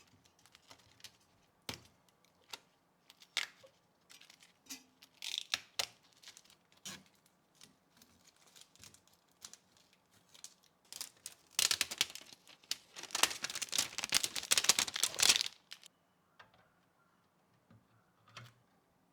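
Hands-on handling sounds while a PC is assembled: scattered clicks, taps and short rustles, then about four seconds of loud crinkling and tearing, like plastic wrap or packaging, starting about twelve seconds in.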